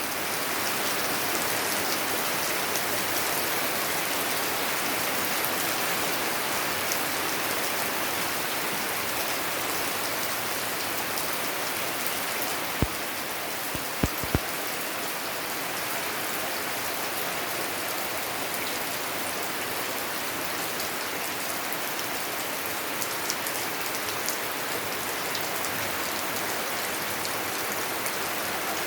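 Steady rain falling, an even hiss of drops on surfaces, with a few sharp clicks about halfway through.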